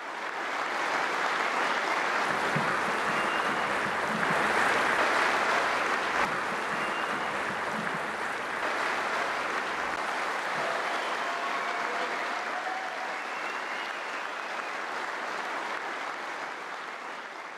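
Large theatre audience applauding, building over the first couple of seconds and slowly fading toward the end.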